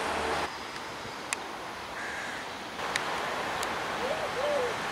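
Steady running hum of an Alstom X72500 diesel railcar, cut off abruptly half a second in, leaving quiet outdoor ambience with a few faint clicks. Near the end a bird gives a run of short hooting notes, about three a second.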